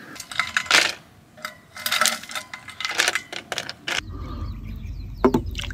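A rapid, irregular series of sharp clicks and light clinks of small hard objects. About four seconds in, a steady low rumble starts, with a couple more clicks after it.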